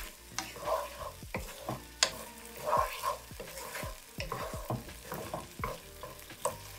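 Wooden spatula stirring and scraping chopped onions and minced garlic around a wok as they fry in oil, with a light sizzle. The spatula knocks sharply against the pan twice, about two seconds in and near the end.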